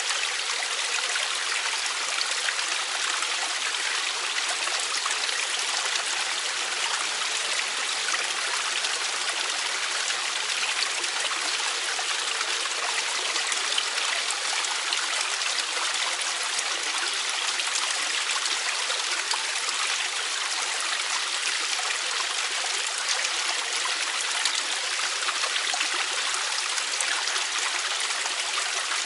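Mountain valley stream running over rocks: a steady, even rush of water that does not change.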